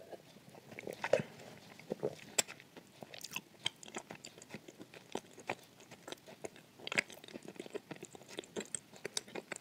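Close-up crunchy chewing of a mouthful of dry edible clay: irregular crisp crunches, several a second, with mouth sounds between them.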